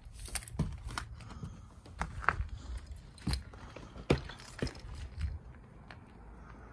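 Footsteps crunching and scuffing over gritty stair treads and charred debris, a string of irregular cracks and crunches that thins out near the end.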